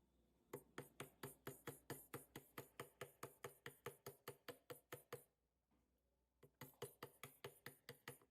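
Rapid, evenly spaced clicking or tapping, about five clicks a second, in two runs with a short pause between them.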